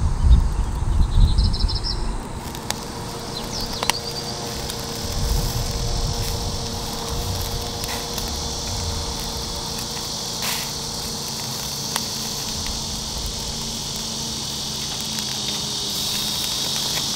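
Lamb rack chops sizzling on a mesh grill over a charcoal fire: a steady high hiss with a few sharp pops of fat. A low rumble fills the first two seconds.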